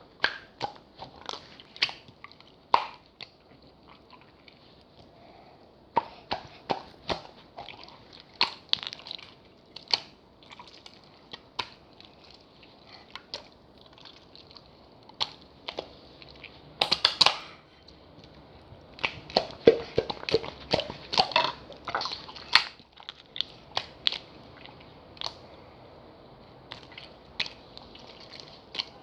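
Slime being squeezed and played with by hand, giving irregular wet clicks and pops, busiest around the middle and lighter near the end.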